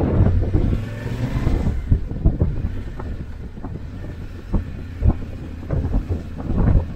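Wind buffeting the microphone in irregular gusts over the steady low hum of a motorcycle engine while riding.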